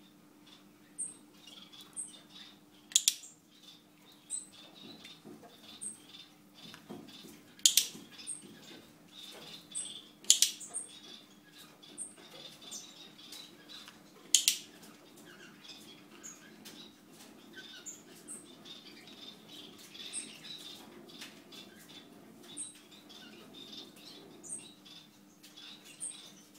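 Pet gerbil making short, high-pitched squeaks about every second or two, with four loud sharp clicks in the first half. A faint steady hum runs underneath.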